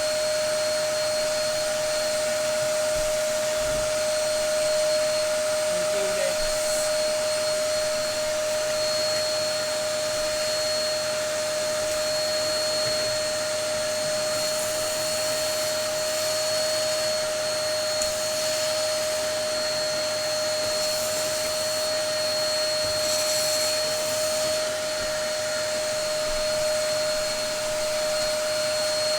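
Dyson DC03 upright vacuum cleaner running steadily: an even rush of air with a constant motor whine.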